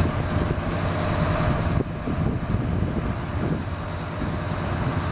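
Wright R-1820 Cyclone nine-cylinder radial engines of a B-17G Flying Fortress running during start-up, a steady low rumble whose level dips slightly about two seconds in.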